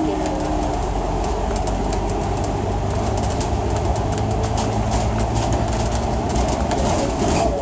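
City bus on the move, heard from inside: a steady rumble of engine and road noise with frequent rattling of the bodywork and fittings.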